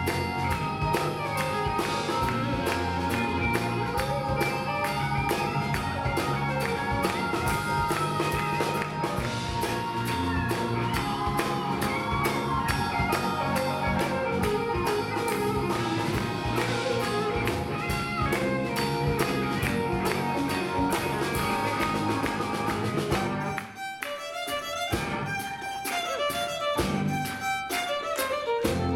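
Live band playing an instrumental passage with a fiddle out front over drum kit, electric bass, guitar and keyboard. About 23 seconds in the full band drops away to sparse, evenly spaced hits for a few seconds, then fills back in near the end.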